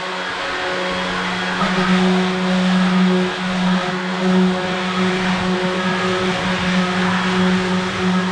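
Handheld electric sander running steadily, a constant motor hum with a hissing whir over it.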